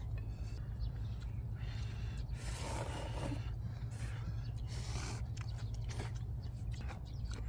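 People eating instant ramen with chopsticks: irregular short slurps and chewing, one longer slurp about three seconds in, over a steady low rumble.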